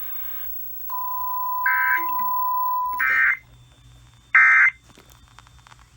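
Emergency Alert System signalling: three short, harsh digital data bursts about a second and a quarter apart, overlapped at first by a steady single-pitch tone that begins about a second in and cuts off after about two seconds.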